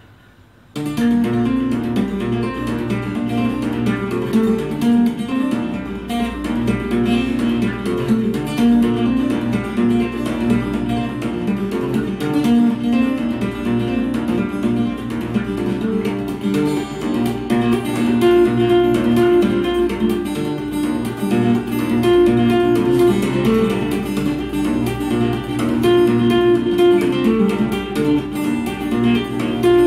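Cutaway acoustic guitar played fingerstyle, with both hands tapping and fretting notes on the fingerboard; the playing starts about a second in.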